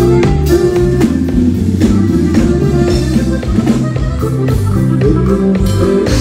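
A live band playing an instrumental dance passage, with a drum kit keeping a steady beat under bass and guitar lines.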